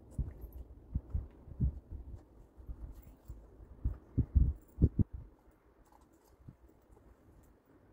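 Soft, irregular low thuds and faint rustling as a Shetland pony's driving harness is handled and buckled on, the pony standing on straw; the thuds are loudest about four to five seconds in, then die down.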